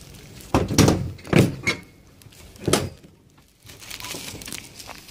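A Trabant's bonnet being lowered and shut: several thunks in the first three seconds, the loudest about a second in.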